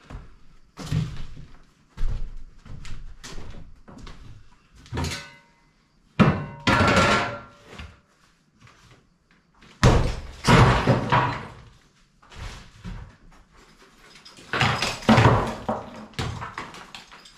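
Blows from a hand tool against the top of an old plaster and masonry wall, knocking repeatedly. Three louder crashes, about six, ten and fifteen seconds in, each about a second long, are chunks of plaster and rubble breaking away and falling.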